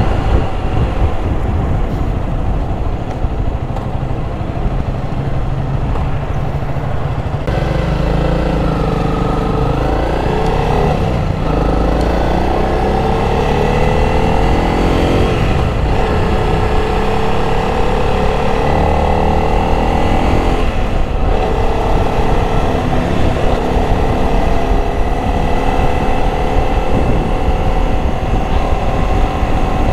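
Honda CRF300 motorcycle's single-cylinder engine running under way, with wind buffeting the microphone. From about a quarter of the way in, the engine note climbs in several pulls, each ending in a short drop in pitch, as the bike accelerates and shifts gears, then rises slowly and steadily.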